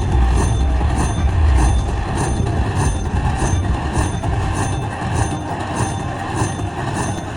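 Slot machine playing its electronic end-of-bonus jingle: a rhythmic chiming pattern of about two beats a second over a low rumble, which eases after about two seconds.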